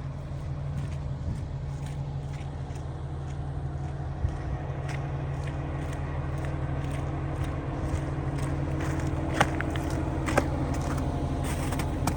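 John Deere 350D excavator's Deere 6090H diesel engine running steadily, with a few sharp clicks on top.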